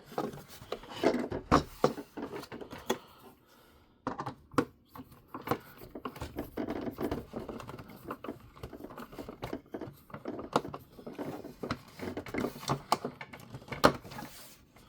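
Small screws and hard plastic toy-car parts being handled and worked with a small screwdriver: irregular clicks, taps and light rattles, a little quieter for a moment about three seconds in.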